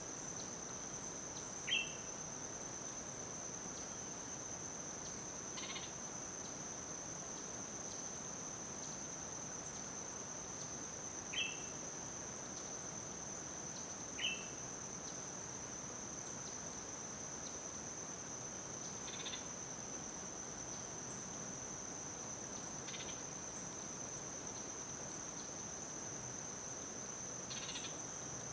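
Insects giving a steady, unbroken high-pitched drone. A bird cuts in with three short, sharp chirps, about two seconds in and again around eleven and fourteen seconds in.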